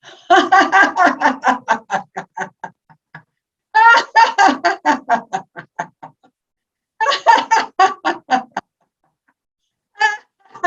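Deliberate laughter-yoga laughing: three long runs of quick 'ha-ha-ha' pulses, about six a second, each trailing off, and a short burst near the end.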